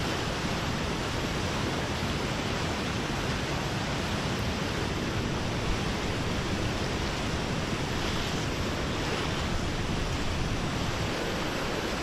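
Fast-flowing floodwater rushing in a swollen river, a steady dense noise.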